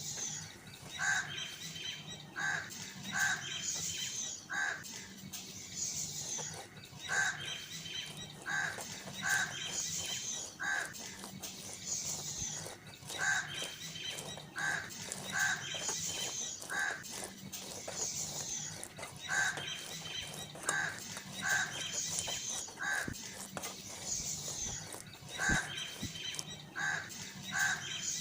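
Bird calls: short clusters of calls repeating in the same pattern about every six and a half seconds, over a faint steady hum.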